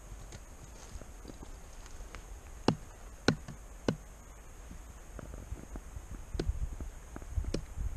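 Hatchet chopping into a log round on a stump: three sharp chops about half a second apart a few seconds in, then a few lighter taps and one more chop near the end.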